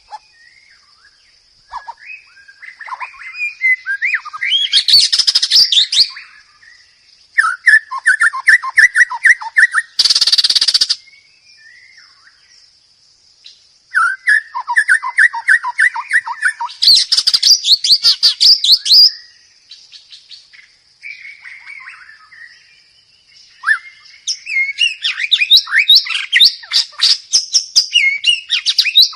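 White-rumped shama (murai batu) singing: loud bursts of rapid, repeated trilled and chattering phrases separated by short pauses, with one harsh buzzy call about ten seconds in. A thin, steady high tone runs underneath.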